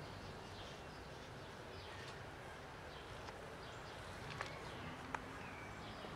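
Faint outdoor background with a few faint, short high chirps and two sharp clicks close together about two-thirds of the way through.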